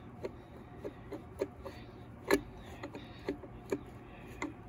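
Faint, irregular light clicks and taps of metal tools on the stripped engine's parts, roughly two a second, with one louder tap a little past halfway.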